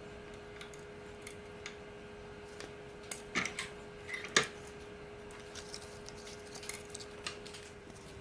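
Small brass fastener parts clicking onto the steel setting die of a hand press. A few louder clacks follow a little after three seconds, then one sharp metal strike as the press's setter comes down on the leather. A steady faint hum with a single held tone runs underneath.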